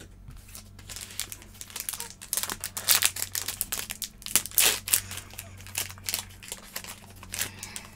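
Foil trading-card pack crinkling and crackling as it is handled and torn open, a dense run of sharp crackles loudest around the middle.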